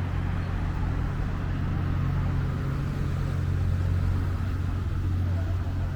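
Steady low engine hum with a rumble, holding even throughout, with no revving or passing.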